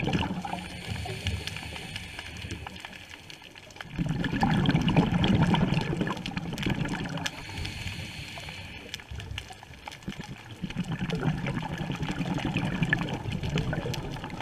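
A scuba diver's exhaled bubbles from the regulator heard underwater: a bubbling burble in two louder spells of about two seconds, around four seconds in and again around eleven seconds in, with quieter stretches between breaths.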